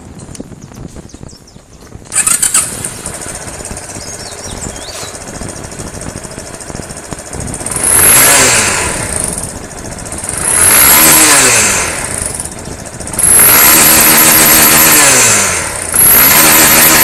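Honda Fan 125 motorcycle's single-cylinder engine, fitted with a 250 CDI, starting about two seconds in and running. It is then revved in two short blips and held at high revs twice for a couple of seconds each near the end, with a strong exhaust note.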